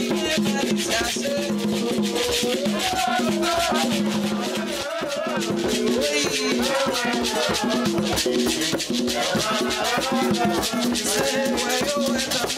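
Live band music with a steady shaker-like rattle keeping a fast, even rhythm under a melody line that rises and falls.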